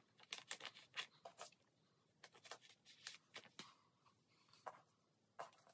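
Faint rustling of plastic binder sleeves as photocards are slid into their pockets: a run of quick scrapes and ticks, thinning out near the end.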